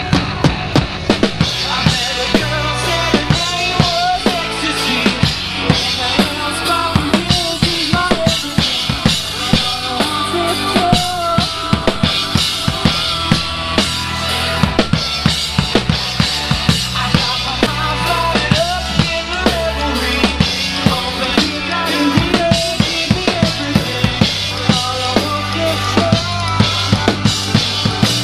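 Live band playing a song, the drum kit's kick and snare keeping a steady beat under the other instruments.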